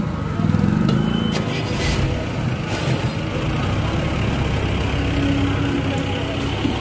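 Fuel dispenser running as petrol is pumped from the nozzle into a motorcycle's fuel tank, over a steady rumble of vehicle engines, with a few light clicks early and a short steady tone near the end.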